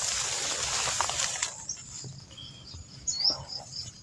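A rustling, scuffing noise on the body-worn microphone for the first second and a half. Once it dies down, a small bird gives a few short, high chirps about three seconds in.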